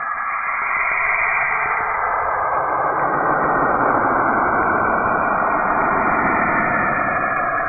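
A space sonification playing as a dense, steady hiss and rumble that fills out lower and grows a little louder about two seconds in.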